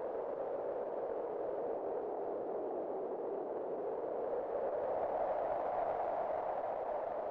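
Wind blowing steadily, a hollow whooshing concentrated in the middle range that swells a little and rises slightly in pitch about five seconds in.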